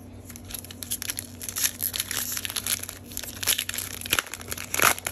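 Foil wrapper of a Panini Donruss basketball card pack being torn open and crinkled by hand: a dense run of crackling and rustling, with the loudest rip near the end.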